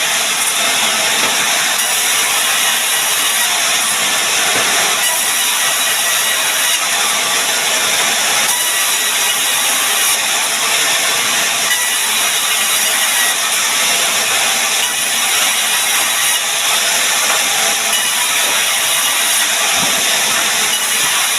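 Power woodworking machine running continuously on sengon wood, making a steady, even, high-pitched noise without pauses.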